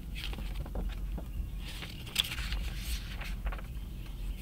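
Paper rustling as a picture book's pages and sheets are handled and opened, in several short bursts over a low steady rumble.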